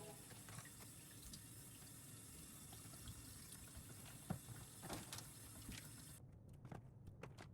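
Near silence: faint room tone with a few soft clicks about four to five seconds in.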